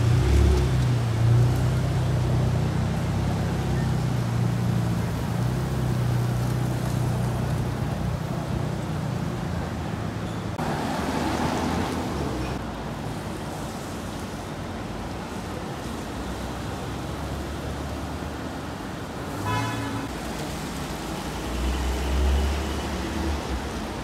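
Street traffic on a wet road: a car engine running close by at first, a passing vehicle's tyre hiss about halfway, and a short horn toot near the end.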